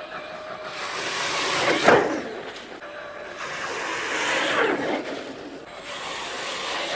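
Traxxas X-Maxx electric RC monster truck running through floodwater: a hiss of spraying water with a motor whine that rises and falls as it speeds up and slows. The sound swells loudest twice, about a second in and again around four seconds.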